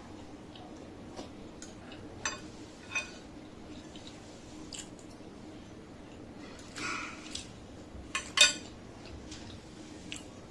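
Eating sounds at a plate: scattered light clicks and taps of utensils or food against dishware, a short scraping rustle a little past the middle, and a sharp double click, the loudest sound, near the end.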